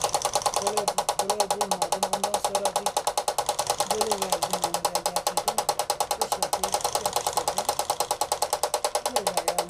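Homemade model helicopter's electric motor spinning its rotor, a steady fast chopping at about ten beats a second.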